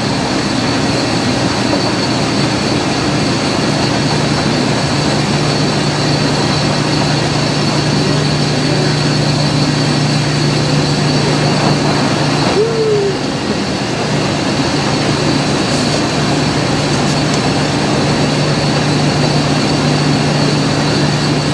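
Steady mechanical drone and rush of laundromat machinery running, with an even low hum.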